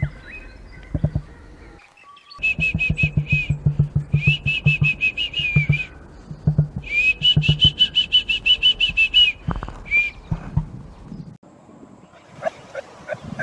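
Emu chicks whistling in fast runs of high chirps, two long runs of about three seconds each over low pulsing thumps. Before them comes a short stretch of an adult emu's low drumming pulses.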